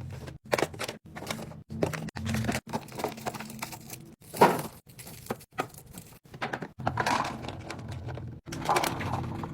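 Food packages and containers being handled and set in place: a string of knocks, taps and rustling, with one louder knock about halfway through, broken off abruptly several times.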